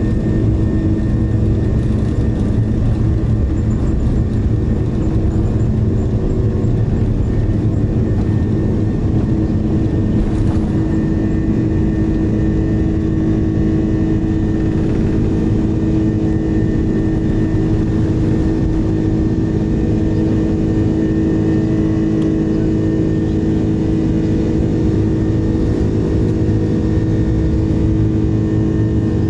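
Airbus A330-300 airliner at takeoff, heard from inside the cabin: the twin jet engines are running at takeoff power, a loud steady rush of noise with a low, steady hum under it, through the takeoff roll, liftoff and initial climb.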